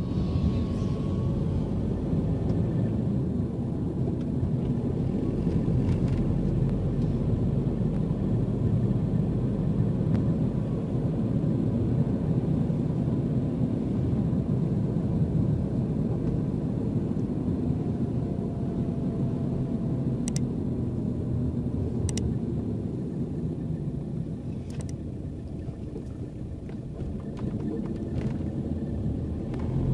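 Steady low rumble of a car driving on a town street, engine and tyre noise heard from inside the cabin, with a few faint ticks about twenty seconds in.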